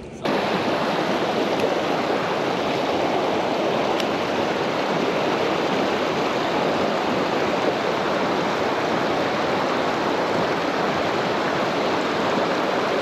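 River rapids rushing steadily over rocks, a loud, even rush of white water that cuts in abruptly a moment after the start.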